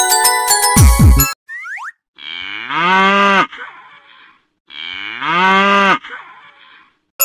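Glockenspiel-like music ends with a loud falling boing and a short rising chirp. Then a cow moos twice, each moo long and drawn out and dropping in pitch at its end.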